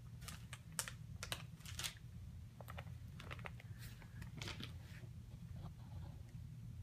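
Irregular light clicks and taps from an African grey parrot and its cage, over a steady low hum.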